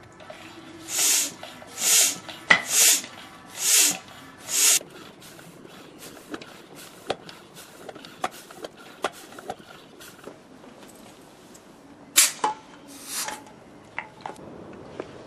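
Bicycle floor pump being worked by hand, five hissing strokes about a second apart, pressurising a water rocket bottle. Scattered small clicks follow, then two more short hisses near the end.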